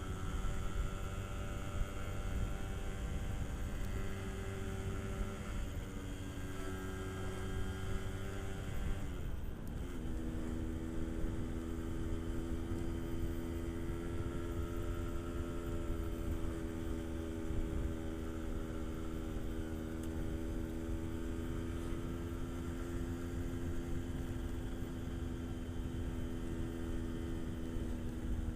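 Yamaha RX-King's 135cc two-stroke engine running steadily while riding. About nine seconds in the engine note dips briefly, then holds steady again.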